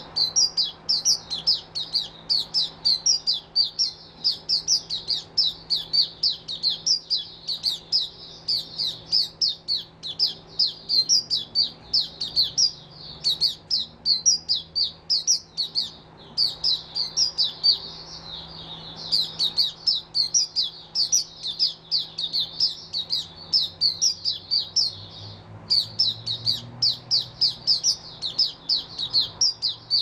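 Caged white-eye singing a long, rapid run of short high chirps, several notes a second, broken only by brief pauses about 18 and 25 seconds in.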